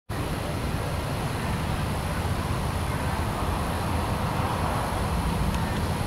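Steady low rumble of an approaching GE P42DC diesel locomotive, still far off down the track.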